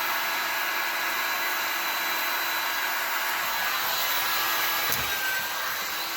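Hot-air blower running steadily, shrinking heat-shrink tubing over the repaired power-adapter cable. A small knock about five seconds in.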